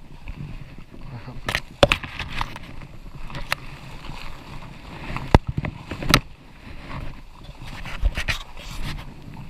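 Rustling of leaves and brush underfoot and against the body as someone pushes through undergrowth, broken by several sharp irregular snaps and cracks of twigs.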